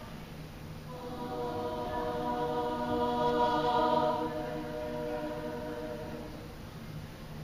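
Girls' treble choir singing a soft held chord that comes in about a second in, swells, and fades away before the end.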